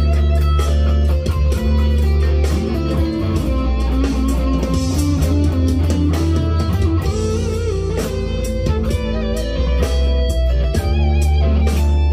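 Leo Jaymz SG-copy solid-body electric guitar played through an amplifier: a low note held under chords and single-note lines, with several notes bent in pitch.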